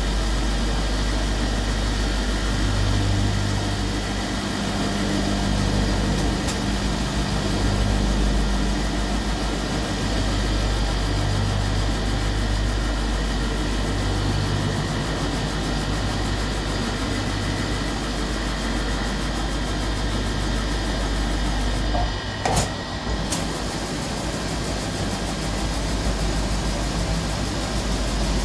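Automatic polishing machine for copper cups running: electric motors and spinning polishing wheels giving a steady mechanical hum and whir. It is broken once by a short dip in level about three-quarters of the way through.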